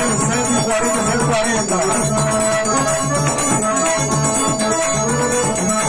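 Forró trio playing live: a Todeschini piano accordion carries the tune over the steady beat of a zabumba bass drum and a triangle struck in a quick, even rhythm.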